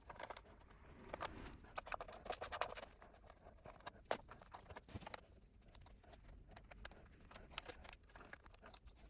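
Faint small metal clicks and taps of a hex tool undoing the bolts of a motorcycle battery's metal hold-down bracket. The clicks come in a quick cluster over the first three seconds, then only a few scattered ticks follow.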